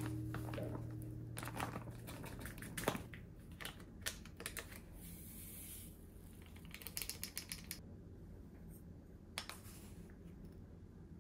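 Paper bag rustling and crinkling in quick clicks as flour is poured into a glass mixing bowl, then a soft hiss of powder about five seconds in and a quick run of crinkles as a small packet is shaken out over the bowl.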